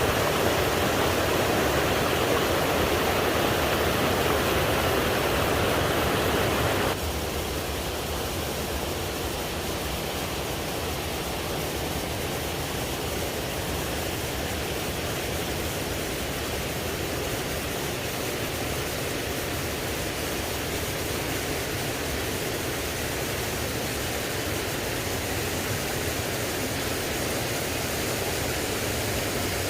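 Steady rushing of flowing water. About seven seconds in it suddenly drops to a softer, thinner rush and carries on steadily.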